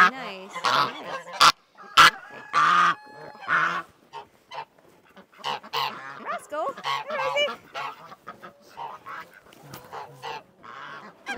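Domestic geese honking repeatedly in short calls, with two sharp knocks about one and a half and two seconds in.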